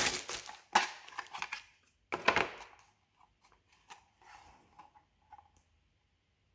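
Plastic packaging crinkling and rustling as a small electronic device is unwrapped by hand, with a sharp rustle about a second in and a louder one about two seconds in, then a few faint taps and clicks of the device being handled.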